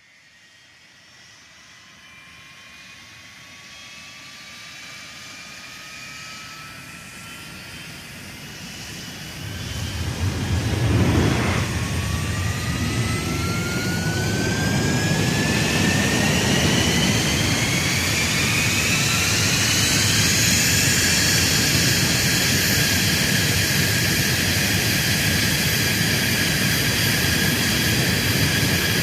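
F-16 jet engine starting up: a turbine whine rises steadily in pitch, and about ten seconds in the engine catches with a sudden swell of low rumble. The whine keeps climbing and levels off into a steady idle about twenty seconds in.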